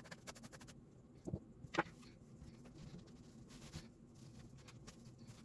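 Faint clicks and taps of a computer keyboard being handled and patted down during cleaning: a quick run of light clicks at the start, then two sharper knocks about a second and a half in.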